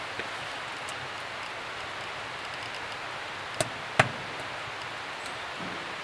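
Steady outdoor background hiss, broken a little over halfway through by two sharp knocks about half a second apart, the second louder.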